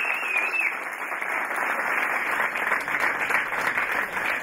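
A small crowd of spectators applauding: steady, dense clapping of many hands.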